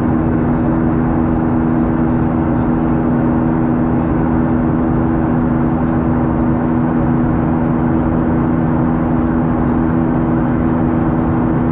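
Steady in-flight cabin noise of a Boeing 737 airliner: the jet engines running and the air rushing past the fuselage. It is a continuous roar with a steady two-note drone underneath.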